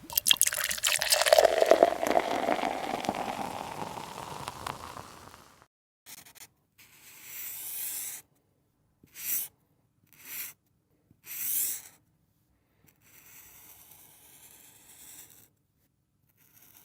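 A run of separate sound effects with silent gaps between them. The first lasts about five seconds and is noisy, like liquid being poured into a container, its tone rising as it fades out. It is followed by four or five short hissing bursts and a faint rustle near the end.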